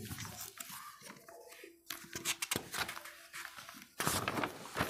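Paper handling: faint light rustles and small taps, then a sudden louder rustle about four seconds in as a sheet of the exam paper is turned over.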